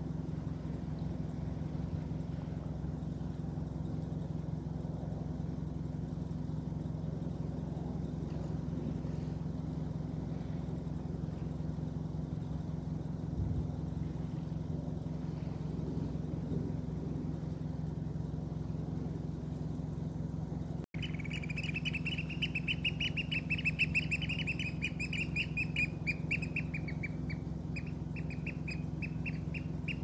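A steady low hum throughout. About two-thirds of the way in, an oystercatcher starts a fast, high piping trill that rises slightly, then falls and slows into separate piping notes near the end.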